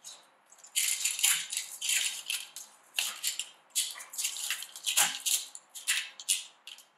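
Stainless steel V-band clamp rattling and scraping against the pipe flanges as it is worked into place around the joint: an irregular string of short metallic rattles and clinks.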